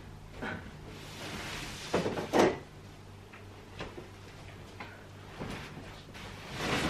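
A mattress being lifted and turned over on a wooden slatted bed frame: soft knocks and rustling of the mattress against the frame, the loudest a pair of thumps about two seconds in.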